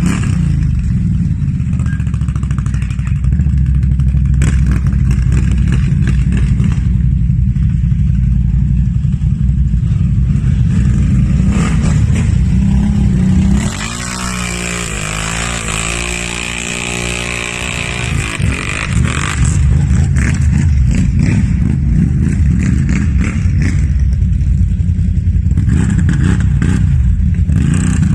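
Off-road vehicle engine running hard in mud. About halfway through the revs climb and fall with a spraying hiss, then the engine goes back to running loud.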